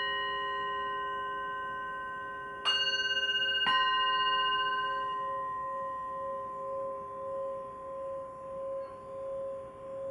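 Small hand-held singing bowl ringing, struck twice about a second apart near the three-second mark. Its low tone then hums on with a steady pulsing wobble as the mallet is circled around the rim.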